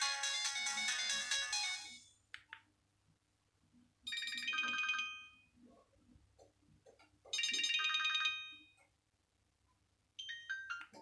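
Nokia 1202 ringtones previewed one after another through the phone's small speaker. One melody plays until about two seconds in, then three short ringtone snippets follow, each cut off after about a second, with quiet gaps between.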